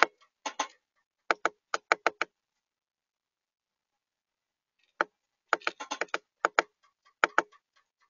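Chickadee pecking at seed in the feeder tray right by the microphone: sharp taps in quick runs of two to six, with a pause of about three seconds in the middle.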